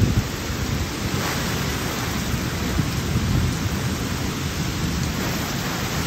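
Heavy rain pouring down in a windstorm: a steady hiss of rain over a low, gusting rumble.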